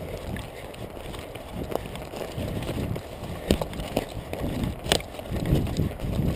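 A runner's footsteps through forest moss and undergrowth, heard from a chest-mounted camera that jolts with each stride, with a few sharp clicks, the loudest about five seconds in.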